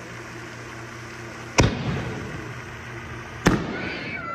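Two aerial firework shells bursting: two sharp bangs about two seconds apart, each followed by a rolling echo that dies away.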